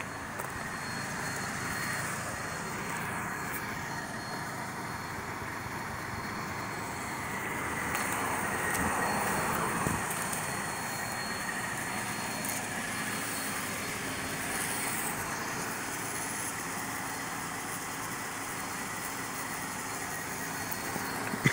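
Steady outdoor traffic noise that swells for a couple of seconds about eight seconds in, with a thin, steady high-pitched tone over it.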